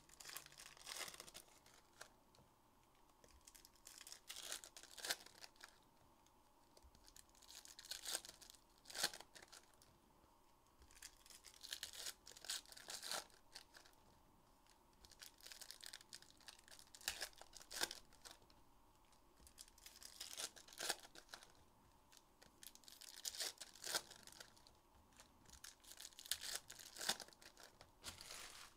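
Trading card packaging being torn open and crinkled by hand, in short rustling bursts every few seconds, as the wrappers of a box of basketball card packs are opened.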